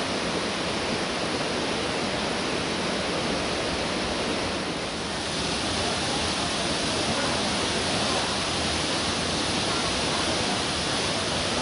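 Kawasan Falls waterfall: a steady, even rush of falling water.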